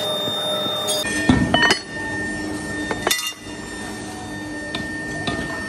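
Metal clanks and knocks from metal moulding flasks and pattern plates being handled and tapped on the sand-casting floor: a cluster of clanks about a second in and one sharp clank about three seconds in, with lighter taps after.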